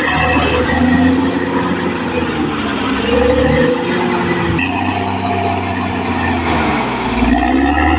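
Caterpillar D6R XL bulldozer's diesel engine running under load, loud and continuous, its pitch rising and falling a few times as the engine revs and labours.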